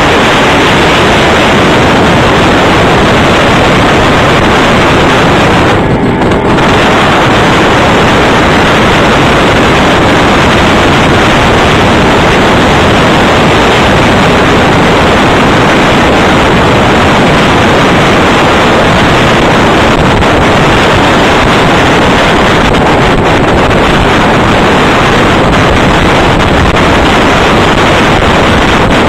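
Loud, steady wind buffeting the phone microphone on the bow of a boat under way, with a brief lull about six seconds in.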